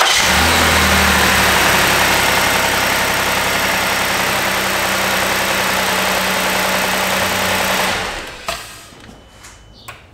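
Ford Edge V6 engine running steadily just after starting, with a new spark plug and ignition coil fitted; it runs fine with no misfire. The sound dies away about eight seconds in.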